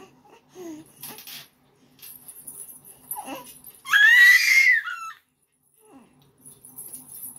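Baby squealing once, high-pitched and about a second long, near the middle, after a few softer coos. The bells of her silver anklets jingle faintly as she kicks.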